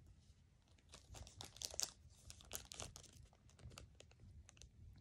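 Faint handling of Pokémon trading cards, the stack being flicked and slid through by hand: a scatter of soft, irregular clicks and rustles.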